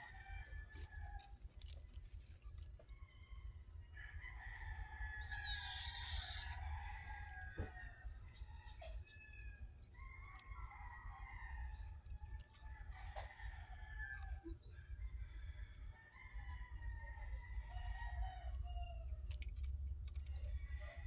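Birds chirping, with short rising chirps repeating about once a second, and a rooster crowing several times, the strongest crow about five seconds in.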